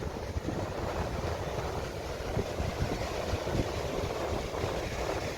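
Strong wind buffeting the microphone in uneven low rumbling gusts, over the steady wash of rough surf.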